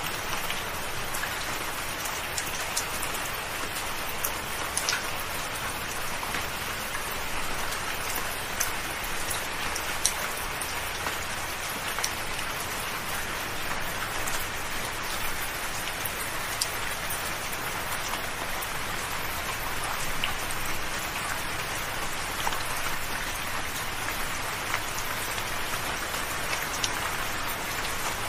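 Gentle rain falling steadily: an even hiss of rainfall with individual drops ticking sharply here and there.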